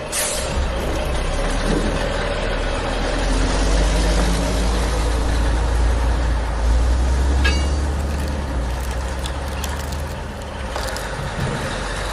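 Steady low rumble with a hiss over it, like a heavy vehicle's engine running, swelling a little in the middle.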